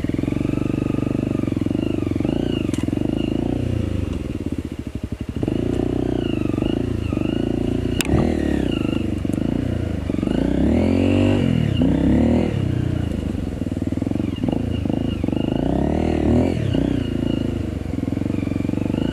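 Trail motorbike engine running and revving up and down, the pitch rising and falling repeatedly as the throttle is worked. A single sharp click about eight seconds in.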